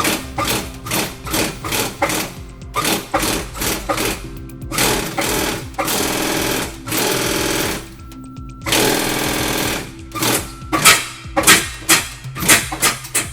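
Sewing machine stitching leather: slow single stitches a few per second, then two short fast continuous runs in the middle, then slow stitches again.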